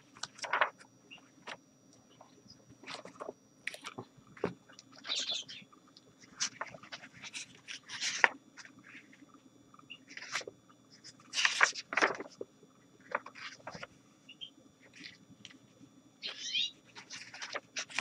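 Pages of an old, well-worn paperback book being turned and handled, the paper rustling and flapping in short irregular bursts, with a few short high chirps from small cage birds in the room.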